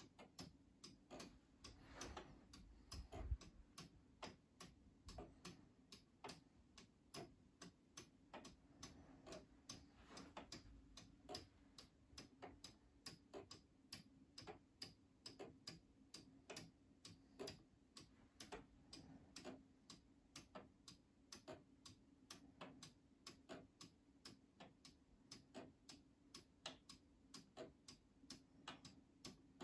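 Two 3D-printed plastic weight-driven wall clocks ticking together, their escapements falling out of step so the faint ticks come at about three a second in an uneven pattern, with one louder knock about three seconds in. A faint steady low hum lies under the ticking.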